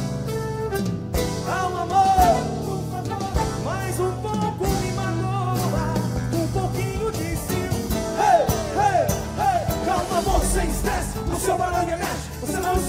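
Live pagode band playing: a male lead singer over drum kit, cavaquinho and acoustic guitar.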